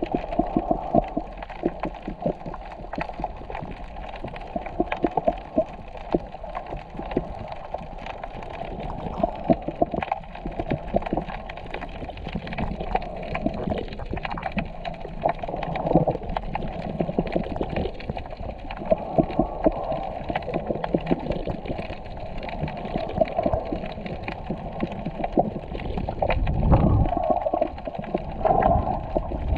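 Muffled underwater sound of seawater moving, full of a constant crackle of small clicks and gurgles, with a louder low rush of water near the end.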